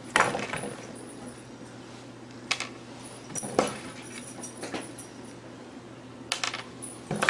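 A few sharp taps and light clatters on a wooden tabletop as a cat swats at a small treat with its paw, over a steady low hum.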